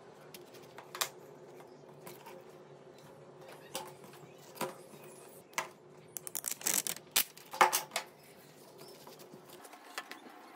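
Light clicks and taps of small parts being handled, then a run of sharp crackling about six to eight seconds in as clear plastic protective film is peeled off a phone's glass touch panel.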